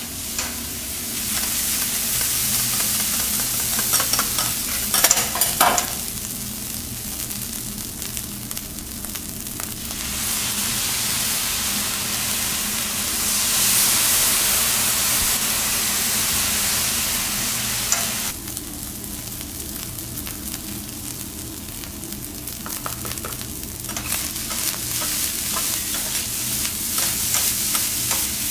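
Egg fried rice sizzling on a steel teppanyaki griddle while metal spatulas scrape, chop and toss it against the plate, with a cluster of sharp clicks about five seconds in. The sizzle grows louder through the middle, then drops back for several seconds before picking up again near the end.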